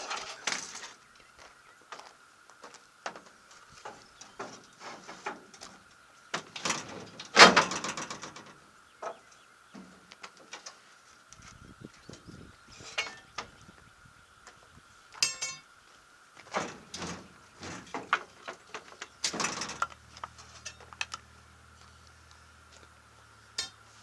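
Scattered knocks and clatter of a metal pry bar and wooden 2x6 blocks as a pickup bed is pried up and blocked on its frame, the loudest clatter about seven seconds in. A steady high whine runs underneath, and a low hum comes in past the middle and stops shortly before the end.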